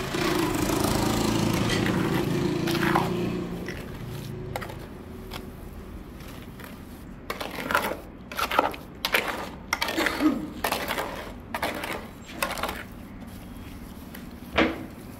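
A small motor runs steadily and dies away about four seconds in. Then come irregular scrapes and knocks of a tool working a wet microconcrete mix.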